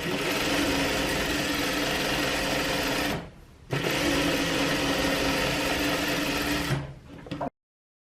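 Sewing machine running steadily as it stitches around a sleeve through the pinned lining and main fabric, stopping briefly about three seconds in, then running again for about three more seconds before slowing; the sound cuts off suddenly near the end.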